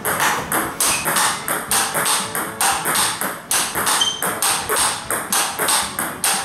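Table tennis rally: the ball clicks off a racket faced with Nittaku Fastarc G1 MAX rubber and bounces on the table in a steady rhythm, about three impacts a second.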